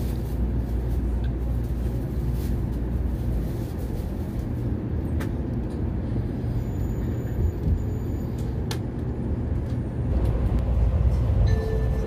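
Steady low rumble of a Tokaido Shinkansen Nozomi train moving slowly out of the station, heard inside the passenger car, with a few light clicks. Near the end, the train's onboard melody chime begins, ahead of the automated announcement.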